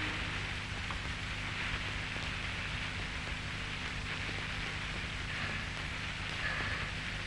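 Steady hiss with a low hum underneath, even throughout: the background noise of an old film soundtrack.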